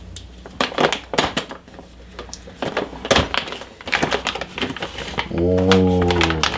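Graphics card box and its packaging being opened by hand: a quick run of clicks, taps and crinkles of cardboard and wrapping, followed near the end by a drawn-out exclaimed 'whoa'.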